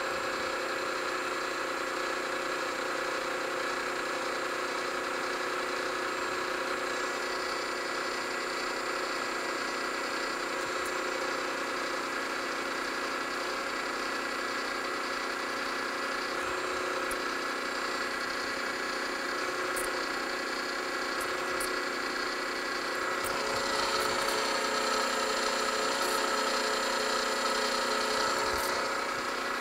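Machine spindle running steadily with a small twist drill cutting a port hole into a brass steam-engine cylinder block. The cutting grows louder and brighter about three quarters of the way through, then eases near the end.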